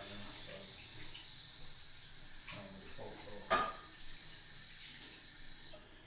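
A steady hiss, like running water, that cuts off suddenly just before the end, with a single short knock about three and a half seconds in.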